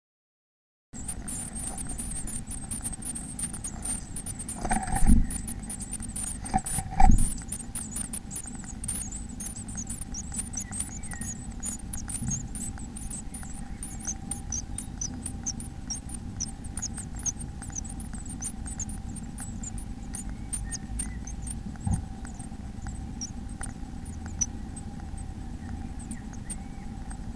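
Small birds inside a nest box giving a rapid string of very high, thin cheeps, which thin out over the second half. Under them runs a steady electrical hum, and there are two loud bumps about five and seven seconds in.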